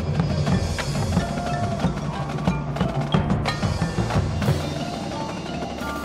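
Marching band and its front-ensemble percussion playing: sustained low notes under a busy run of struck percussion hits.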